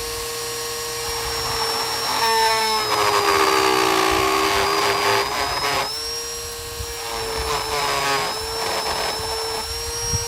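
High-speed electric rotary carving tool running with a steady whine. Its pitch sags and a rough grinding comes in as it bites into the wood, from about two to six seconds in and again around seven to nine seconds.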